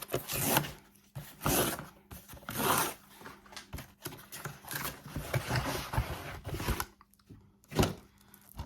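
An Amazon delivery package being torn open by hand: three short rips about a second apart, then crinkling and rustling of the packaging, and one more quick rip near the end.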